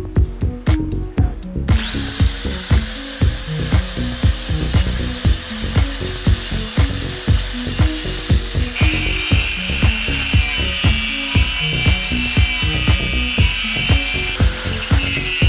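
Electronic dance music with a steady beat, over an electric power tool that spins up about two seconds in and runs with a steady whine. The tool's sound changes twice, about nine seconds in and again near the end.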